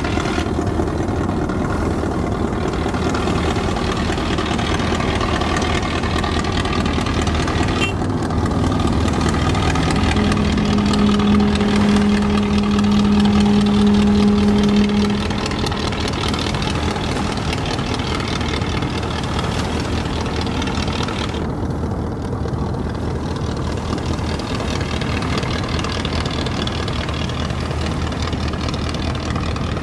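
Boat diesel engine running steadily, a continuous low drone. A long, loud, steady low tone sounds for about five seconds about a third of the way in, over the engine.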